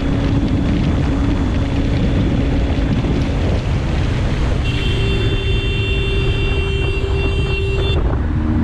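Steady wind rush and running noise of a motorcycle at highway speed. About halfway through, a horn sounds one steady note for about three seconds as a car cuts into the lane ahead.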